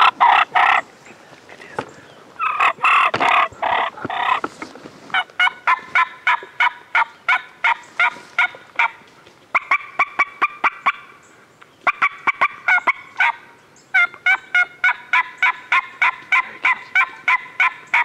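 Wild turkeys calling: two loud gobbles, the first right at the start and the second a couple of seconds later, then long runs of rapid, evenly spaced yelps, about three to four a second, in several series broken by short pauses.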